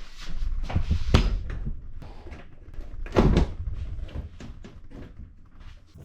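Clunks and knocks of a computer tower case being handled and turned around, the loudest about three seconds in, with lighter taps between.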